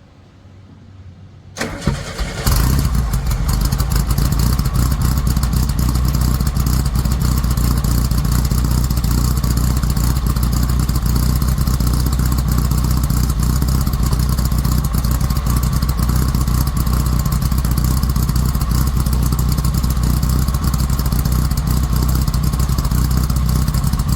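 VW Type 3 air-cooled flat-four engine, breathing through a Dynomax race bullet muffler, cranks and catches about two seconds in, then settles into a steady idle.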